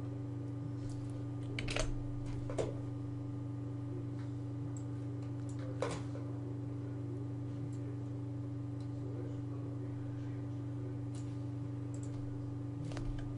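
Scattered clicks from a computer keyboard and mouse, a few sharper ones in the first six seconds and fainter ones later, over a steady low electrical hum from the recording.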